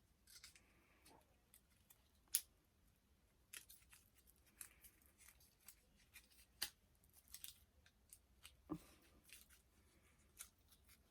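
Faint, scattered sharp clicks and small crinkles of a doll's packaging being taken off, with one louder click about two and a half seconds in.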